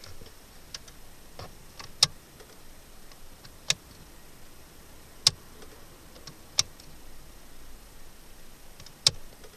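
Ignition key in the lock of a 2004 Chrysler Voyager being turned on and off repeatedly: sharp clicks about a second and a half apart, five loud ones with fainter clicks between. This is the key-cycling method for calling up stored fault codes.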